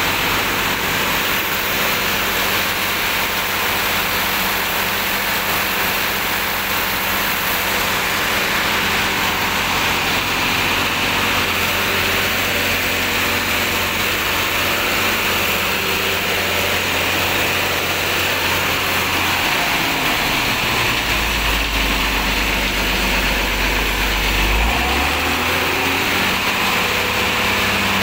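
Rear-mounted diesel engine of a coach bus idling with its engine hood open. About twenty seconds in the engine speed drops, holds lower for a few seconds, then picks up again.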